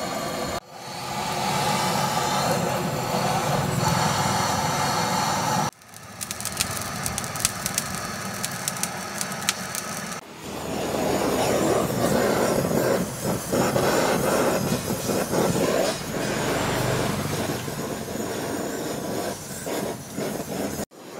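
Handheld butane canister torch burning with a steady rushing hiss as its flame is held against charcoal to light it, breaking off abruptly a few times. In a middle stretch, many sharp crackles sound over the hiss.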